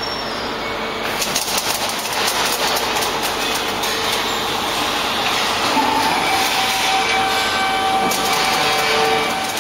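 Coil packing line machinery running: a steady mechanical noise with dense rattling clatter from about a second in, and a steady whine joining about six seconds in.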